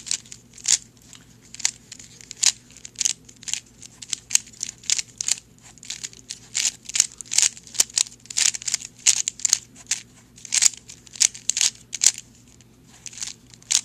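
Layers of a 3x3 Rubik's Cube being turned by hand: an irregular run of sharp plastic clicks and clacks, about three a second.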